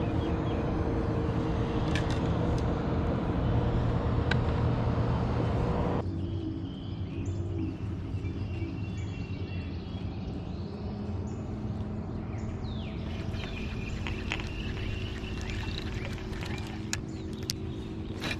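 Boat's electric trolling motor running with a steady hum, which turns abruptly quieter about six seconds in. Birds chirp over it in the second half, with a few light clicks near the end.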